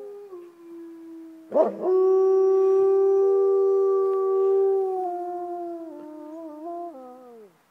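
Several wolves howling together, long held howls overlapping at different pitches. A new howl breaks in loudly about a second and a half in and holds steady, then the voices waver and slide down in pitch and die away near the end. The uploader guesses it is a territorial howl.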